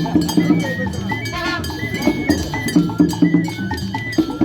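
Percussion music: drums and a struck metal bell beat a fast, steady rhythm, with a short high melody line over it.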